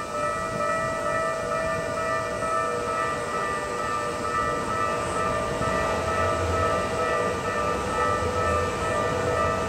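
Japanese level-crossing warning bell ringing steadily, with a Keikyu Line train running through the crossing; the train's low rumble swells a few seconds in.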